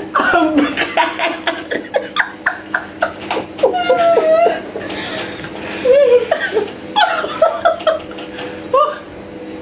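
A woman laughing hard in repeated bursts, breaking up in fits of giggling.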